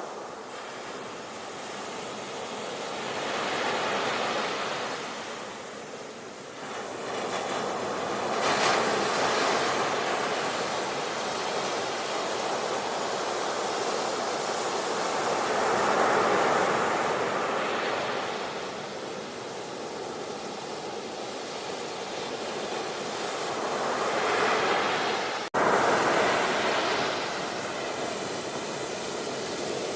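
Sea waves surging and washing on a shore, a steady rush of surf that swells and ebbs every few seconds, with a momentary cut-out about three-quarters of the way through.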